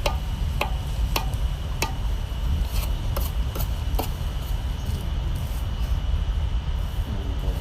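Repeated sharp knocks of food preparation on a hard work surface, evenly spaced about half a second apart at first, then more irregular, over a steady low rumble.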